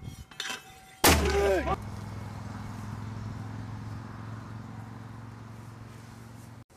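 A mortar firing: a round dropped down the tube launches with one sharp, loud report about a second in. After it comes a steady low background hum.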